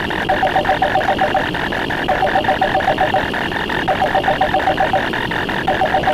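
Layered sound effects: a rapid, even run of clicks, about eight a second, under bursts of a trilling electronic phone ring, each about a second long and repeating roughly every two seconds.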